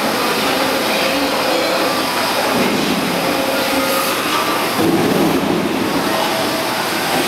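Steady, loud noise of industrial machinery running on a factory floor, with a few faint steady tones.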